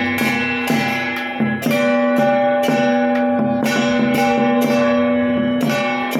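Traditional Taiwanese temple-procession music: cymbals and gongs clash in a quick repeating pattern, two to three strikes a second, over steady sustained tones.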